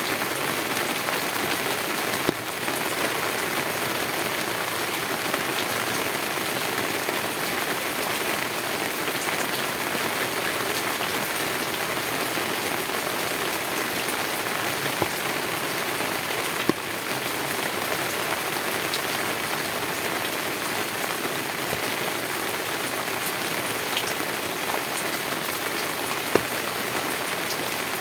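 Heavy rain falling on a tin roof: a steady, dense patter, with a few louder single drop strikes now and then.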